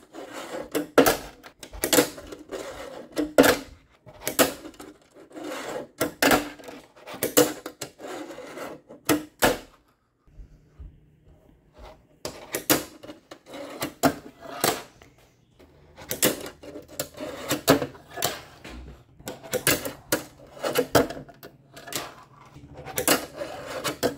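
Tech Deck fingerboard being flicked, popped and landed on a tabletop and plastic ramp: repeated sharp clacks of the small deck and wheels striking the surface, with brief rolling in between. The clacks stop for a couple of seconds about ten seconds in, then resume.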